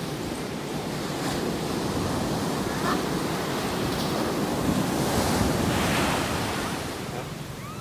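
Ocean surf breaking and washing up a sandy beach, with wind buffeting the microphone. The wash swells louder toward the middle and eases off near the end.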